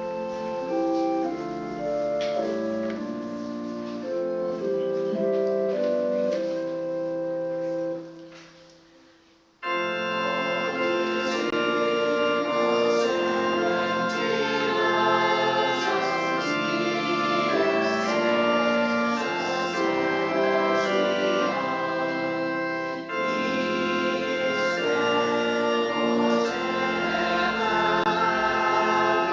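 Church organ playing sustained chords. About eight seconds in it dies away to a brief silence, then comes back in suddenly, fuller and brighter.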